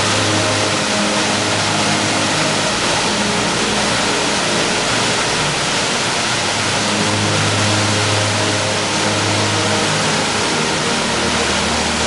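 Waterfall water rushing into a pool, a steady loud hiss, under slow background music of held low notes that change every couple of seconds.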